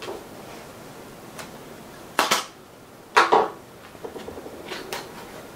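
Cardboard packaging handled by hand: two short, loud scrapes about two and three seconds in, then a run of lighter clicks and taps.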